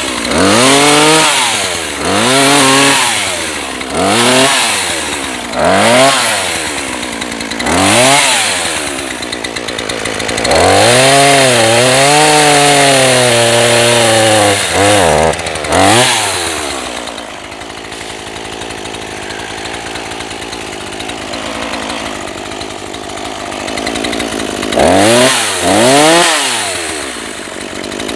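NEO-TEC NH 841 gasoline chainsaw, a small two-stroke, revved up and down again and again, held at high revs for about four seconds in the middle, then dropping to a steady idle before two more quick revs near the end. It runs, but the owner says the carburettor still needs more tuning.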